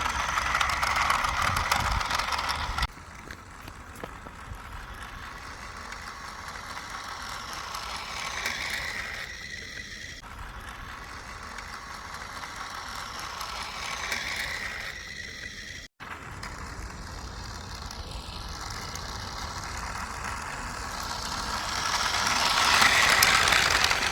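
Battery-powered toy train's small motor and plastic gears whirring as it runs, loudest in the first few seconds, then swelling and fading several times as it comes near and moves away.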